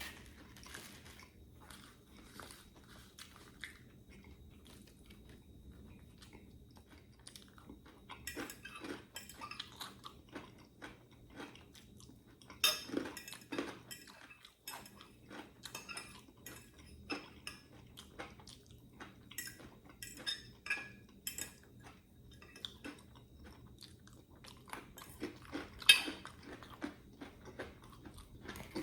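Close-up eating sounds: chewing and crunching food, with a fork or other cutlery clinking on a plate or bowl. A couple of louder clinks stand out, one about halfway through and one near the end.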